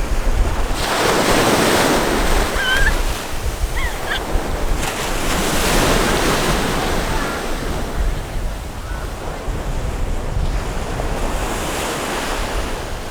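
Ocean surf breaking on a beach, coming in swelling surges every few seconds, with wind rumbling on the microphone.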